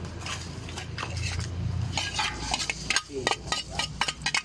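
Talangka crabs being sautéed: a metal utensil scraping and clattering in a pan, with rapid irregular clicks and scrapes starting about two seconds in over a low steady hum.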